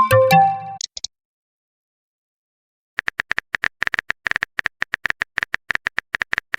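A short electronic message chime of a few tones at the start, then about two seconds of silence, then a fast, even run of phone-keyboard typing clicks from about three seconds in.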